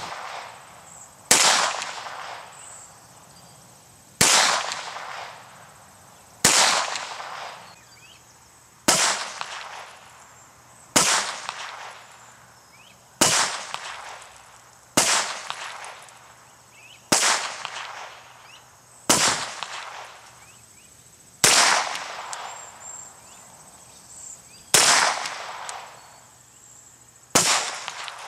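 Pistol fired in slow, aimed single shots: about twelve shots roughly two seconds apart, each echoing and fading over about a second.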